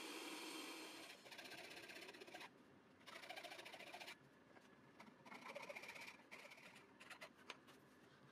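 A drill press running for about a second, then a small hand file rasping on the edge of a wooden recess in several separate strokes, each about a second long, with a few light clicks near the end.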